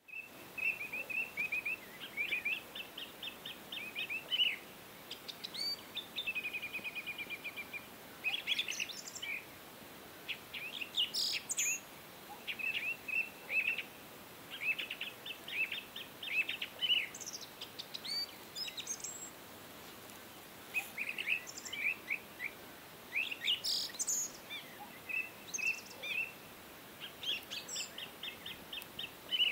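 Birds chirping and calling in quick runs of high notes and short trills, with brief pauses between, over a faint steady hiss.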